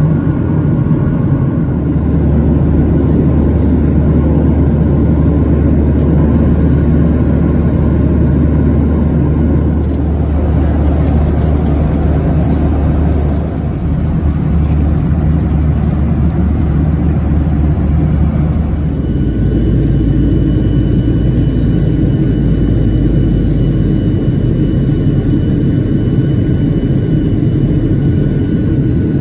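Jet airliner cabin noise in flight: a loud, steady rumble of turbofan engine and airflow heard from a window seat beside the engine. Its tone shifts twice, about a third and two-thirds of the way through.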